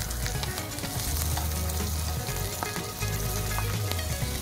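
Salmon fillet frying skin-side down in hot olive oil in a nonstick pan: a steady sizzle with small crackling pops as the skin crisps.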